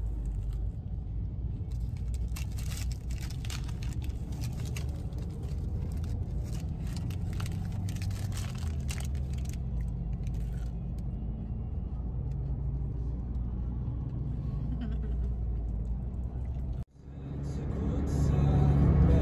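Steady road and engine rumble inside a moving car's cabin. Over the first ten seconds there are crackles from a hash brown being eaten out of its paper sleeve. Near the end the sound cuts out briefly and the rumble returns louder.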